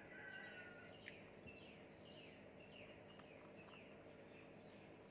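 Faint bird chirps, short falling notes repeated many times, over a low steady hum, with a sharp click about a second in and a few softer clicks.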